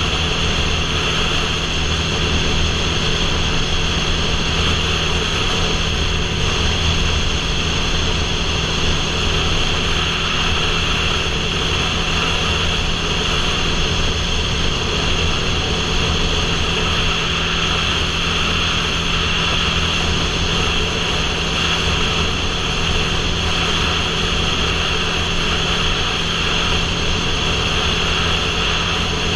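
Motorcycle cruising at steady highway speed: an even engine drone under a constant rush of wind over the helmet-mounted camera.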